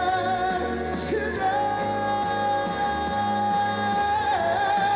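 Live trot song: a backing track with a steady beat under one long held melody note with vibrato, which steps up about a second and a half in and dips briefly near the end.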